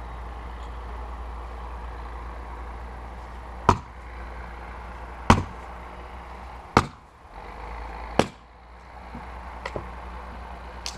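Cyclone 2.5 kg splitting axe striking firewood on a chopping block, four sharp blows about a second and a half apart, followed by a couple of lighter knocks near the end.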